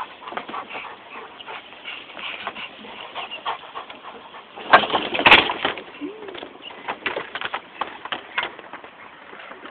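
A chocolate Labrador scrambling up a white vinyl fence: claws scratching and knocking on the panels in many short clicks and scrapes. The loudest burst of scrambling comes about five seconds in, followed by a short whimper.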